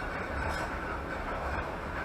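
Passenger train carriage running along the track, a steady rumble and rolling noise heard from inside the coach, with a faint steady whine over it.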